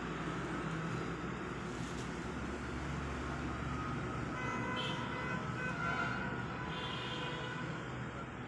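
A horn sounds for about three seconds, starting around halfway through, over a steady background hum of traffic.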